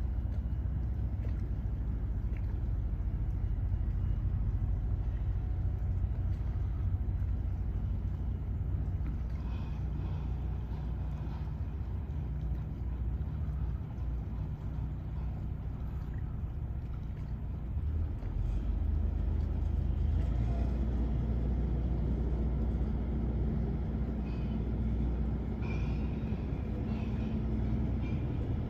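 Steady low rumble of a heavy diesel engine, growing louder about two thirds of the way through, with a few faint high squeaks near the end.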